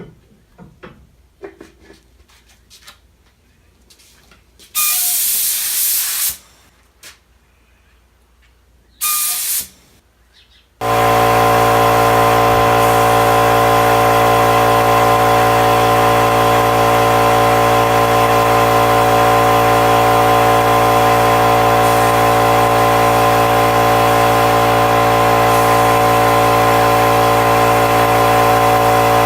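Two short bursts of spray hiss, then a motor-driven machine starts abruptly about eleven seconds in and runs with a steady, unchanging hum and whine, typical of the air supply for spray painting.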